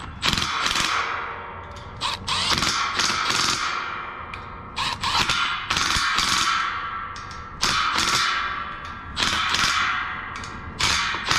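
Milwaukee cordless driver running in about six short bursts, each a second or two long, driving the fasteners that hold the new condenser fan motor to the fan grille.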